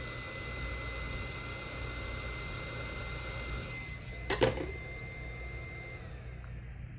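Heat gun running with a steady high whine over a fan's rush, shutting off and winding down about six seconds in. A sharp click about four and a half seconds in.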